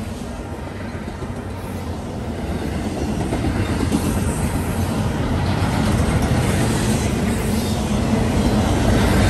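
Norfolk Southern double-stack intermodal freight train rolling past at speed, a steady rumble of wheels on rail that grows louder a few seconds in.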